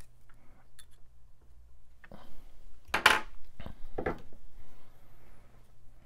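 A thin knife blade scraping corrosion from a pin in a laptop RAM slot: a few light ticks, then three short scrapes about two, three and four seconds in, the middle one the loudest, over a faint steady hum.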